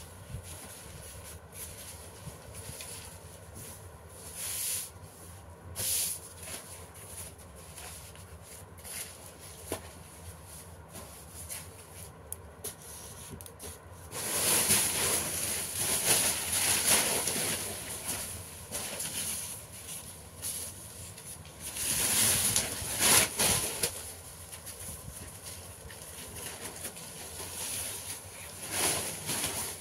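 Paper rustling and crinkling as sheets are handled and folded by hand, with a few short rustles at first and louder, longer handling about halfway through and again a little later.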